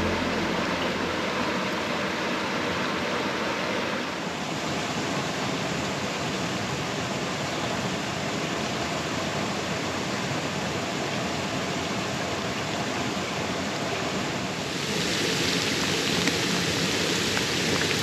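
Steady rushing of a small creek and its low waterfall, with rain falling on the water. The hiss gets brighter and a little louder about fifteen seconds in.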